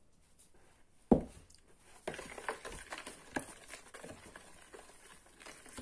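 A metal spoon stirring flour into a wet yeast batter in a plastic mixing bowl, with quick, irregular scrapes and clicks against the bowl. There is one sharp knock about a second in.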